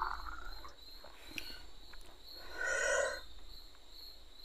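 Crickets chirping steadily with a regular pulse, while the last of a pour of liquor into a glass trails off at the start. About two and a half seconds in, a single short animal cry of under a second stands out as the loudest sound.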